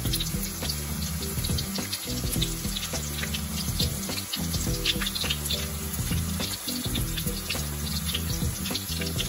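Onion pakoda fritters deep-frying in hot oil: a steady bubbling sizzle full of small crackling pops. Soft background music with low notes runs underneath.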